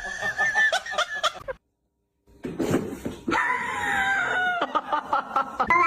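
Cats meowing and yowling in drawn-out, wavering calls, with a brief cut to dead silence before two seconds in; near the end one meow rises and falls in pitch.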